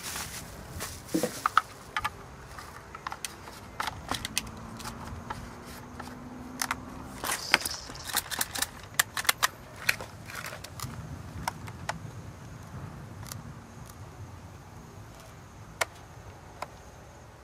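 Irregular clicks and knocks, some in quick runs, thinning out after about ten seconds.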